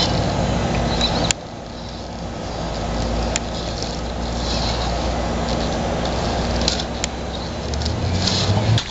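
Axial RC rock crawler's electric motor and geared drivetrain whirring steadily at crawling speed as it climbs over rocks. There are a few sharp clicks of tyres or chassis on stone, and a louder click about a second in after which the sound is quieter. The whir swells near the end and then stops abruptly.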